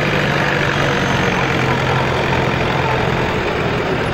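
Tractor engine running steadily, its pitch stepping down about a second and a half in as the revs drop.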